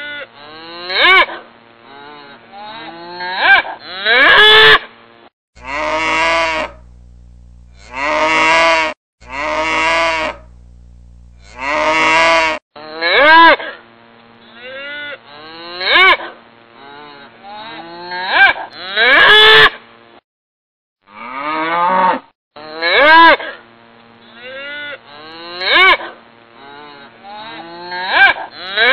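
Cattle mooing over and over, one loud call after another every second or two. In the middle, four longer calls come over a low steady hum, and about two-thirds of the way through there is a break of about two seconds.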